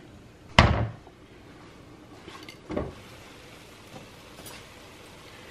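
Glass pot lid knocking against the rim of a metal pan once, sharply, about half a second in, then a softer knock near the three-second mark.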